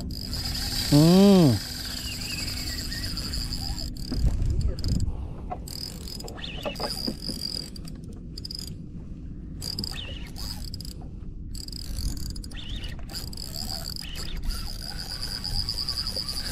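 Steady, high-pitched chirring of crickets, with a person's brief shout that rises and falls in pitch about a second in.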